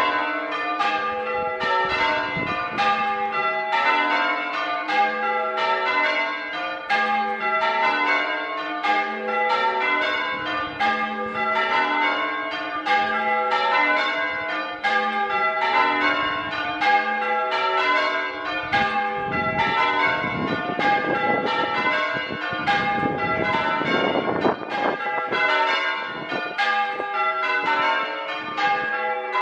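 A ring of six English church bells, tenor 8-3-22 cwt tuned to G, in change ringing, heard from outside the tower: strike follows strike in an even, steady rhythm. About two-thirds of the way through there are a few seconds of rushing noise beneath the bells.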